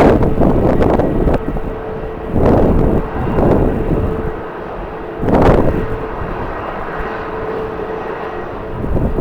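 Strong wind buffeting the microphone in gusts, the loudest about two and a half seconds in and again at five and a half seconds. Beneath it runs the steady hum of an airliner's jet engines.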